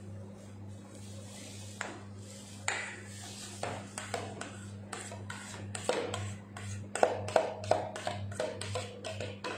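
Metal palette knife scraping and tapping against a metal bowl while spreading cream frosting on a cake: a run of quick scrapes and clicks with short metallic rings, getting busier after a couple of seconds, over a steady low hum.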